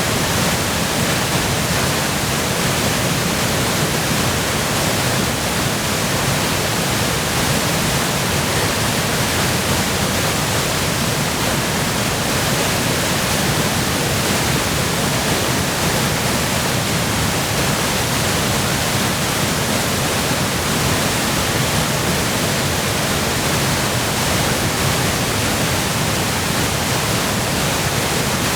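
Waterfall in high flow from spring melt and heavy rain, making a steady, dense rush of white water with no breaks or changes.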